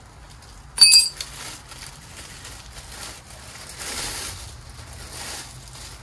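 Plastic bag wrapping rustling and crinkling as it is pulled off a propane torch and its hose, with one sharp, ringing clink about a second in.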